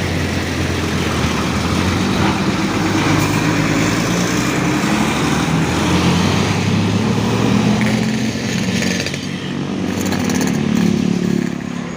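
Large bus diesel engine running as the bus moves past, its engine note rising and falling with throttle.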